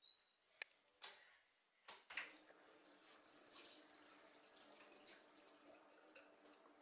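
Near silence: a few faint sharp clicks in the first two seconds, then a faint steady hiss.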